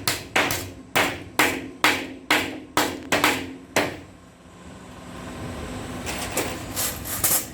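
Hammer driving nails into split-bamboo floor slats, about two sharp strikes a second, each with a short ring. The strikes stop about halfway through, and a few fainter knocks follow near the end.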